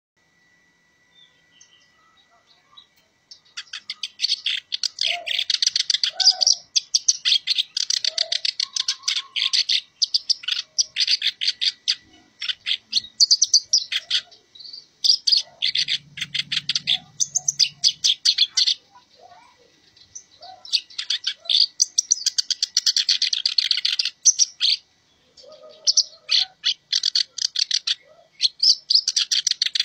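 Black-browed reed warbler (kerak basi alis hitam) singing a fast, chattering song that starts a few seconds in: rapid notes in long runs broken by short pauses.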